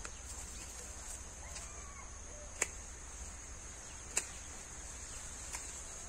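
Steady high drone of insects, likely crickets or cicadas, with three sharp knocks about a second and a half apart and faint bird chirps.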